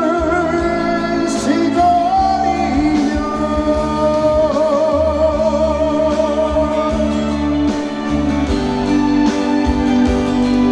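Trot song performed live over its backing track: a singer holds long notes with vibrato, and the band accompaniment carries on into an instrumental break near the end.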